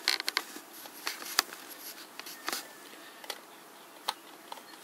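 Handling noise of an aluminium soda can and a small glue tube on a wooden board: light clicks and taps, a quick cluster at the start, then single clicks about once a second.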